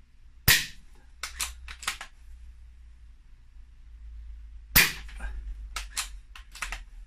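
Two shots from a sub-12 ft-lb BSA Ultra SE air rifle hitting a thick pine decking board, about four seconds apart. Each shot is a sharp crack followed by a few lighter clicks.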